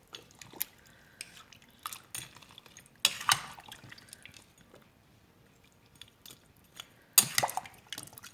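A spoon stirring chunks of chicken and vegetables in water in a metal pot: wet squelching with scattered clinks of the spoon against the pot, and two louder knocks about three and seven seconds in.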